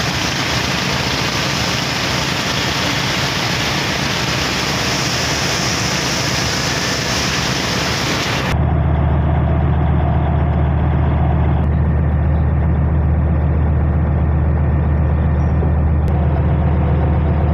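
A river-taxi passenger boat's engine runs steadily, with water rushing past the hull. About halfway through, the rushing hiss drops away suddenly and the engine's low drone becomes louder and dominant.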